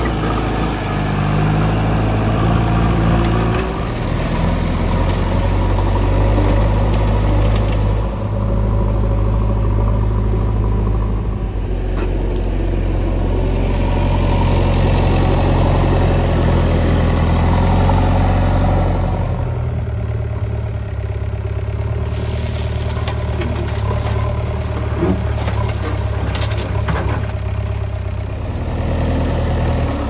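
JCB 3DX backhoe loader's diesel engine running steadily close by. After about two-thirds of the way in, its deepest rumble drops away and the sound thins a little.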